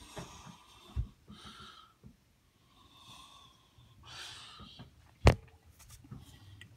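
A person breathing heavily through the nose close to the microphone, in short noisy breaths about every second and a half. There is a sharp knock about five seconds in, and a fainter one about a second in.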